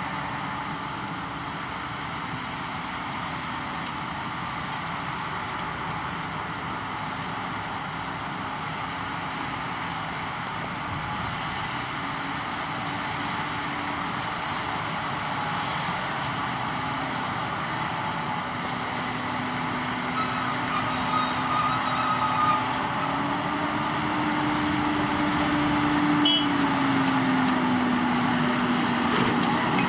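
Heavy diesel farm machinery running steadily, an engine hum over a broad mechanical rumble. The engine note rises about two-thirds of the way through and drops back a few seconds later, and the sound grows louder toward the end.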